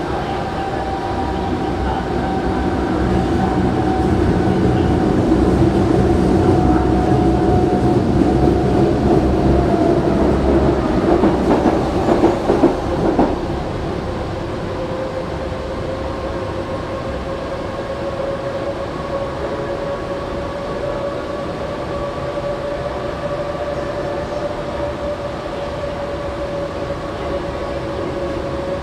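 Berlin U-Bahn G1/1E train running through a tunnel, heard from inside the car: a steady rumble of wheels on rail with a whining tone that falls in pitch over the first ten seconds. A short rattle of clacks comes about twelve seconds in, then a fainter whine slowly rises.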